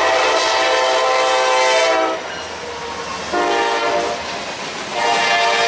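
Nathan K5LA five-chime air horn on a Norfolk Southern SD70ACu locomotive, sounded as a long blast, a short one, then another long one as the locomotive passes close by. Rolling noise from the passing train fills the gaps between blasts.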